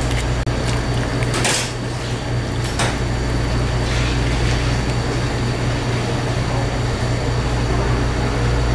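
Steady low machine hum with a background of noise, broken by two short knocks or clatters, about one and a half and three seconds in.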